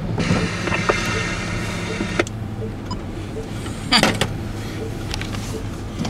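Steady low hum of a car's engine heard from inside the cabin as the car creeps along at walking pace. A hiss runs for the first two seconds, and there are a few sharp clicks and knocks, the loudest about four seconds in.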